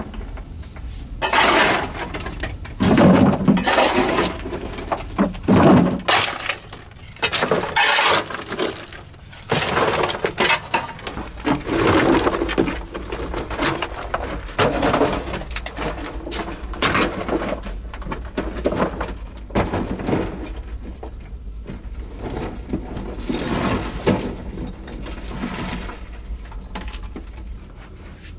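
A metal hand tool striking and scraping at the fire-weakened rock of a cave wall, chunks and gravel breaking off and crumbling to the floor in irregular bursts.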